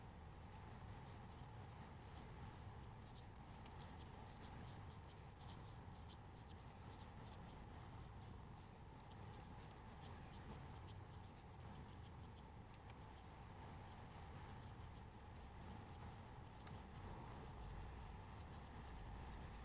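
Black marker pen scratching across paper in many quick, short strokes, faint, over a steady low hum.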